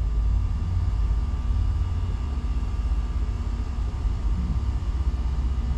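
A steady low rumble with a faint, steady higher hum above it.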